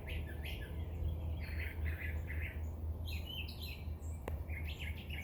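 Songbirds chirping in short bursts of high notes, over a steady low rumble, with a single sharp click about four seconds in.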